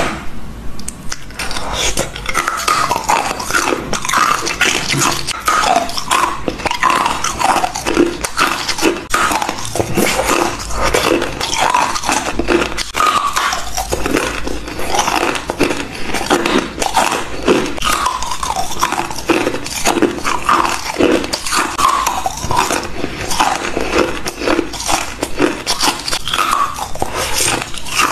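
Hard coloured ice sticks being bitten and chewed, a dense run of sharp cracks and crunches. Short high-pitched falling whines recur among the crunching.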